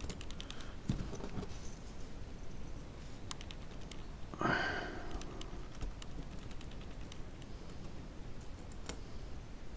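Light clicks and taps of fingers handling a small plastic connector and thin wires on a camera gimbal, with a short rustling rush about four and a half seconds in.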